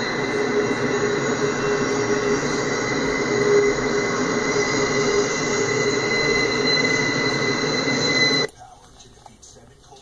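Double-stack intermodal well cars rolling past on a sharp curve, their wheel flanges squealing in steady high-pitched tones over the rumble of the wheels. The sound cuts off abruptly near the end.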